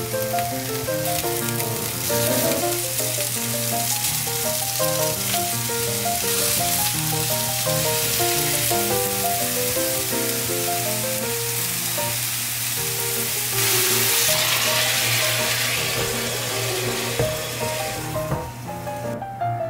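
Chicken meatballs sizzling in oil in a nonstick frying pan, a steady frying hiss with a louder surge about two-thirds through. Light background music plays over it.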